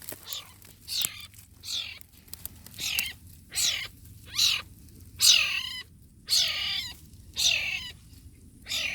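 Wild cat kitten mewing repeatedly: high-pitched calls that each fall in pitch, about one a second.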